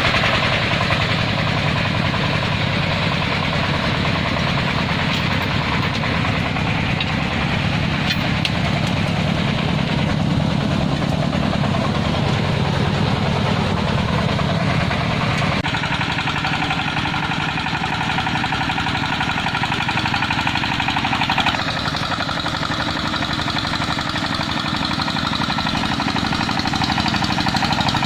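Single-cylinder diesel engine of a công nông farm truck running with a steady, fast knocking chug. Its tone changes about halfway through and again a few seconds later.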